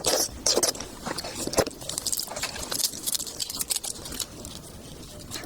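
Close-miked wet chewing and lip smacking while eating seafood, irregular clicks and squelches with a few louder smacks in the first few seconds.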